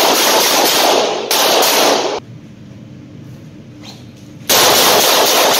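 Revolver fired in quick strings of shots in an indoor concrete-walled range, the shots running together into two long stretches of loud noise: one at the start lasting about two seconds, the other beginning about four and a half seconds in.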